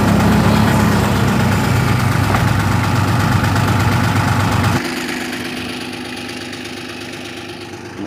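Backhoe's diesel engine running hard at high revs, then dropping abruptly to a quieter idle about five seconds in.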